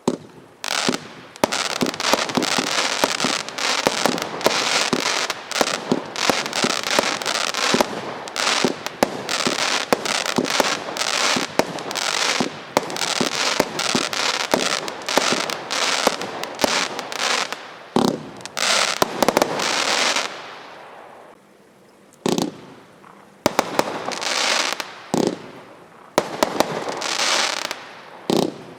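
Standard Fireworks Daredevil barrage cakes firing: a dense, rapid string of bangs and crackle for about twenty seconds, then a short lull and a few scattered bursts near the end.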